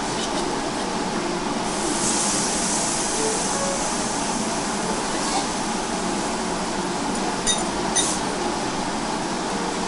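Yakiniku restaurant ambience: steady background hubbub of a busy dining room with a hiss of sizzling from the table grill for about two seconds near the start, a shorter hiss around the middle, and two light clinks of tableware near the end.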